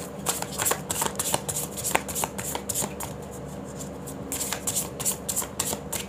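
A tarot deck shuffled by hand, a quick run of soft card flicks and riffles, easing off about halfway through before a second run of shuffling.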